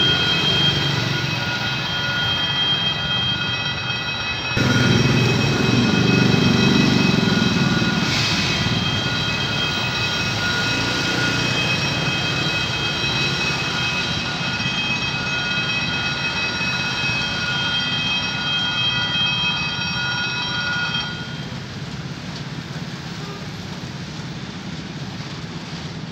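Level-crossing warning bell ringing steadily as a train approaches, cutting off suddenly about 21 seconds in. Beneath it runs a low engine rumble, which swells for a few seconds about five seconds in.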